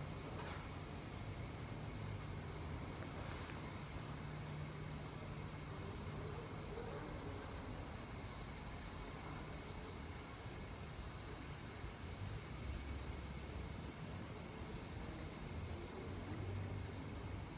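Dense chorus of insects: a steady, high-pitched, unbroken trilling that shifts a little higher about halfway through.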